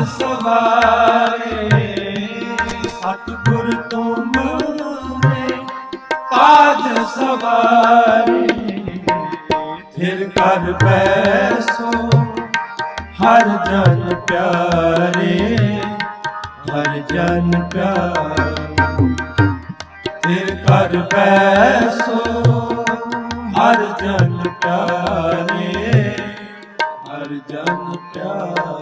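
Live Sikh kirtan music: tabla keeps a steady rhythm under a melody of harmonium and wavering sung phrases.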